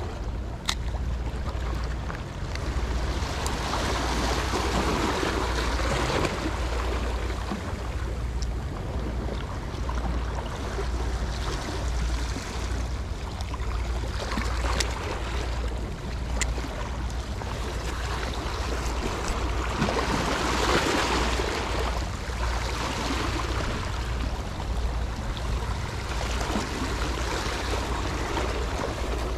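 Sea water washing and surging in swells every few seconds, over a steady low wind rumble on the microphone, with a few faint clicks.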